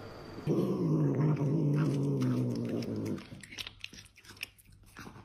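A house cat growling over food: one low, drawn-out growl lasting about three seconds, sinking slightly in pitch, followed by a few small clicks as it chews and bites.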